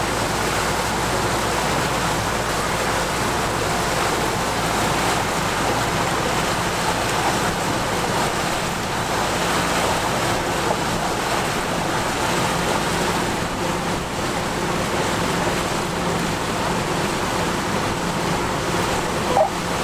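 Small wooden motor launch under way: a steady rush of water along the hull over the even low hum of its engine.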